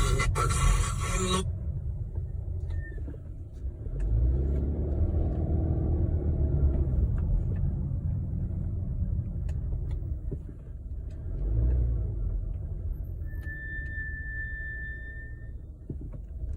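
2019 Subaru Ascent rolling with a low rumble of road and vehicle noise, and a steady high-pitched brake squeal that sounds briefly about three seconds in and again for about two seconds near the end. A loud hiss at the start cuts off after about a second and a half.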